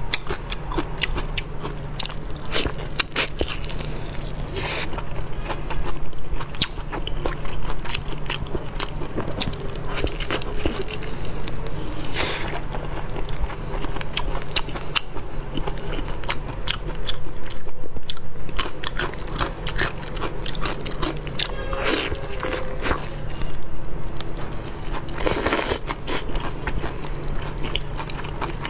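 Close-miked eating: wet chewing and biting of braised meat, with the meat being pulled apart by hand, full of small clicks and a few louder crunchy bursts. A steady low hum runs underneath.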